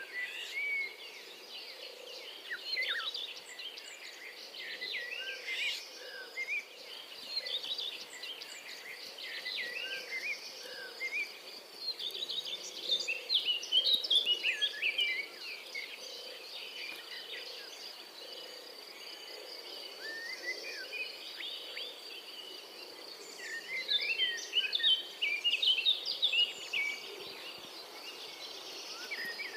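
Songbirds chirping and calling in quick, busy bursts, thickest about halfway through and again near the end, over a steady high-pitched insect drone.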